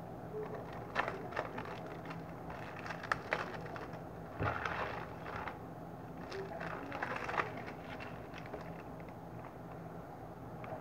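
Clear plastic wrapper on a small cardboard box crinkling and crackling under the fingers as it is handled and unwrapped, in short irregular crackles.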